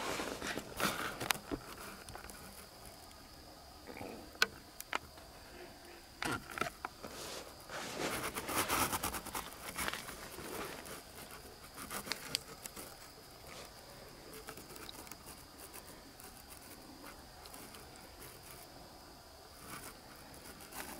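Steady high-pitched chorus of night insects, with scattered clicks and a spell of rustling about eight to ten seconds in.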